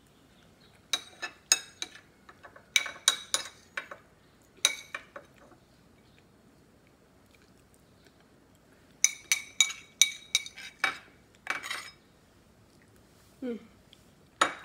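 Metal spoon clinking and scraping against a ceramic bowl while the last of the mung bean stew is scooped up. The clinks come in quick ringing clusters: a few bunches in the first seconds, then a longer run about two-thirds of the way through.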